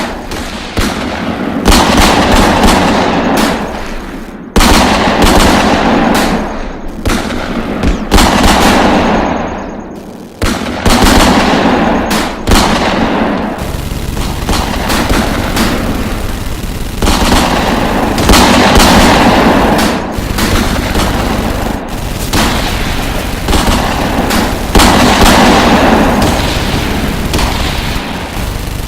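Gunfire sound effects: dense, continuous volleys of automatic machine-gun fire mixed with single gunshots, swelling and restarting every second or two.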